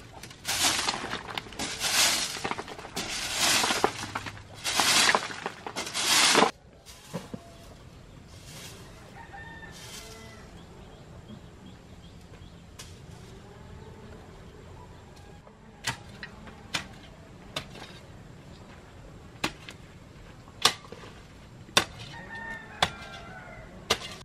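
Chickens clucking and calling. For the first six seconds or so there is a run of loud swishing strokes, about one a second. After that it is quieter, with sharp clicks a second or so apart.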